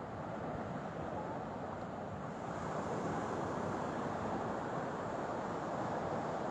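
Steady rushing noise of sea water and wind, a little louder from about two and a half seconds in.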